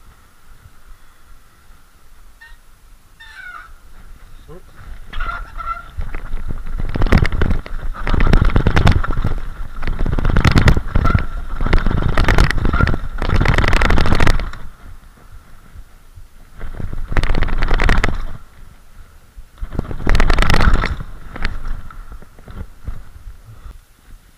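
Mountain bike riding down concrete steps: a long loud run of rattling and thudding from tyres, chain and frame hitting each step, then two shorter bursts, with a steady high squeal from the disc brakes running through.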